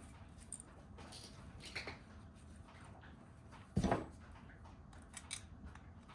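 Scattered light clicks and taps, with one louder knock about four seconds in.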